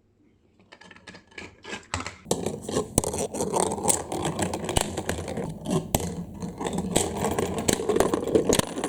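Balls rolling down a plastic toy marble-run track: a few scattered clicks at first, then from about two seconds a continuous rattling roll, with frequent sharp clicks as they hit the track pieces.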